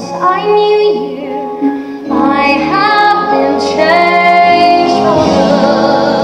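Female voices singing a musical-theatre duet ballad over steady instrumental accompaniment, the held notes carrying vibrato. The singing grows louder about two seconds in.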